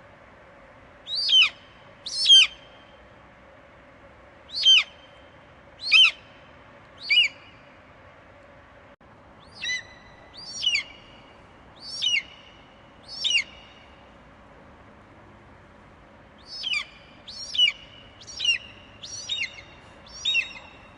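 Eagle screeching: a series of short, high, piercing calls, each falling in pitch. They come in loose groups about a second apart, closer together near the end, over a steady faint background hiss.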